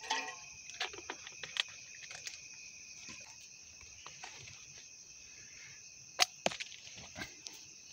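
Steady chirring of crickets, with scattered sharp clicks and taps from handling things at a camp stove; the loudest two come close together about six seconds in.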